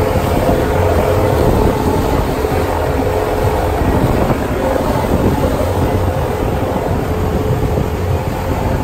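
Motorboat under way: engine running steadily, with water rushing past the hull and wind on the microphone.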